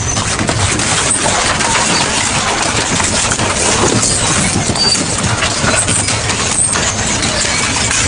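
Double-shaft industrial shredder running under load, its blades crushing and tearing through scrap in a dense, continuous crunching noise with many sharp clicks and cracks.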